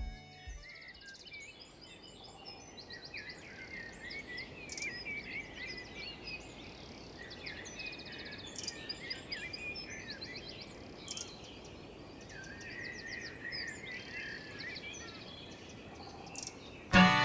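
Several small birds singing and chirping outdoors, many short trills and calls overlapping, over a faint steady background hiss. Music fades out at the very start, and folk music with accordion comes in sharply near the end.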